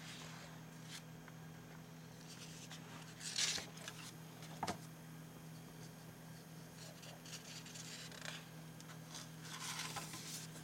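Pages of a comic book being turned by hand, paper swishing and rustling in several short sweeps, the loudest about three and a half seconds in, with a small click just after. A low steady hum runs underneath.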